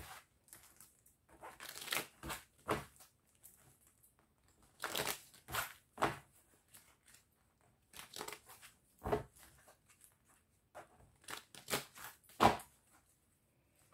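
A deck of tarot cards being shuffled by hand: short, uneven rustles and flicks of cards sliding against each other, with pauses between them.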